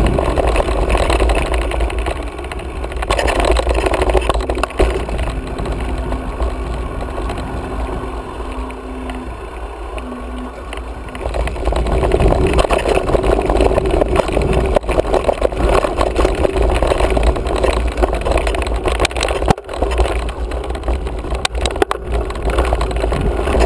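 Wind rumble on an action camera's microphone with tyre and frame noise from a mountain bike riding a dry dirt singletrack. A few sharp knocks near the end as the bike hits bumps.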